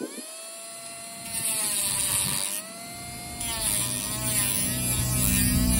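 Bauer rotary tool with a drum sander spinning up to a high steady whine, its pitch sagging when it is pressed into the work. A harsh grinding hiss comes in two spells, from about a second in, as it grinds down the head of a knife's pivot pin so the pin can be punched out.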